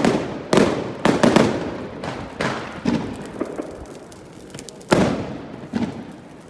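Fireworks going off overhead: about eight sharp bangs at uneven intervals, each with a short echoing tail. The loudest bang comes about five seconds in.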